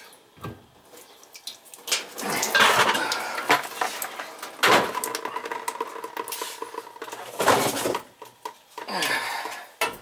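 Steel boiler expansion tank clanking and rattling against its fitting as it is unscrewed and taken down, several separate knocks with scraping between them. One knock near the middle leaves a hollow metallic ring that hangs on for about two seconds.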